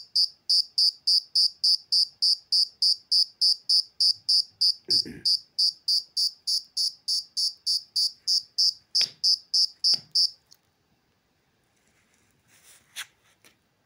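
Male field cricket chirping by rubbing its raised wings together: an even run of high-pitched chirps, about four a second, that stops about ten and a half seconds in. A dull thump about five seconds in and two sharp clicks near nine and ten seconds, with a faint rustle near the end.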